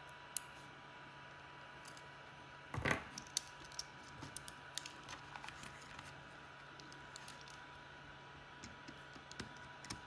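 Small plastic clicks and ticks of a screwdriver driving screws into a DJI Mini 2 drone's plastic shell while the shell halves are squeezed together, with a sharper knock about three seconds in.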